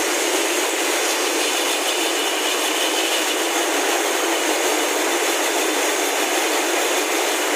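Steady, even din of many jute spinning frames and their overhead line-shaft drives running together in a mill hall.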